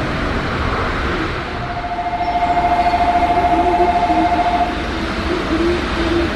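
Tokyo Monorail train running alongside the platform, a steady rumble, with a flat, rapidly pulsing electronic tone sounding for about three seconds in the middle.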